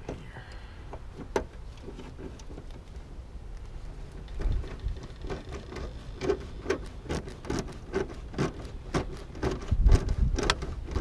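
Irregular clicks, taps and knocks of stiff electrical wires and hand tools being worked into a metal electrical box. They grow busier from about four seconds in, with a heavier thump near the end.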